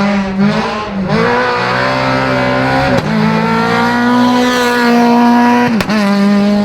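Renault Mégane Maxi race car engine at full throttle, its note climbing and then dropping sharply with each upshift, about three times. A sharp crack comes with two of the shifts.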